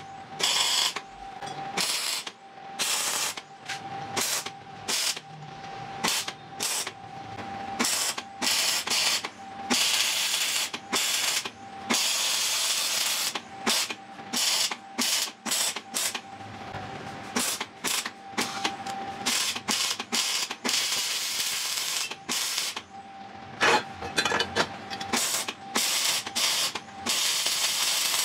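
Wire-feed (MIG) welding arc crackling on steel in many short bursts as tack welds are laid, with a few longer runs of a second or two.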